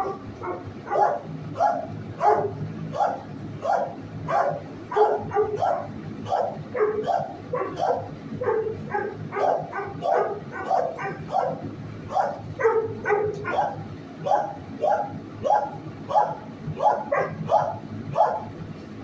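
Several shelter dogs barking continuously, about three barks a second, overlapping with no break.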